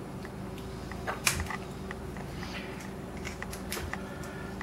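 Light metal clicks and scrapes of a small tool prying at the retaining clip on the back of a euro cylinder lock, the clearest click about a second in, over a faint steady hum.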